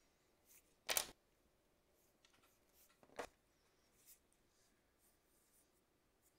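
Two short rustles of a paper sheet being handled and shifted on a drawing desk, a louder one about a second in and a softer one about three seconds in, with near silence between.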